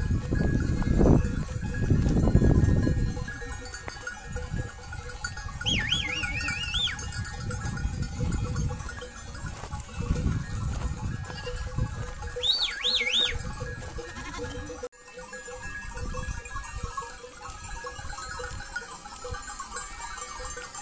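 Sheep and goats of a grazing flock bleating, over background music with held tones.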